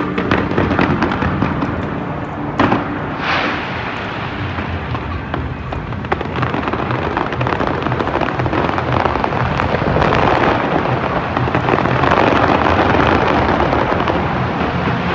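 New Year's Eve fireworks display: a dense, continuous run of bangs and crackling, with one sharp bang about two and a half seconds in and the crackle growing denser and louder in the second half.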